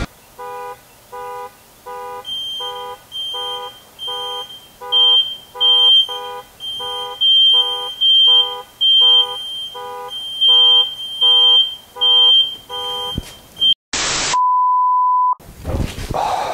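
Electronic beeping, a little under two short beeps a second, with a higher tone joining each beep after about two seconds. Near the end the beeping stops, and a short burst of hiss is followed by a steady single tone lasting about a second.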